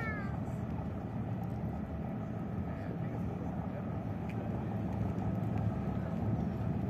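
Boat engines running with a steady low rumble, a ship manoeuvring in port with a pilot boat close by.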